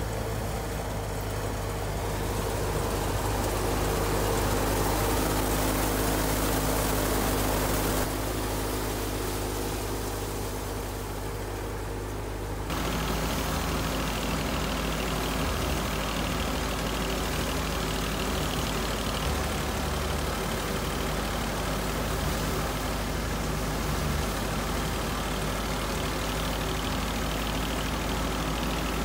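Belt-driven wheat thresher and the engine that drives it running with a steady droning hum as wheat sheaves are fed in. The sound shifts suddenly about 8 seconds in and again near 13 seconds, then holds steady.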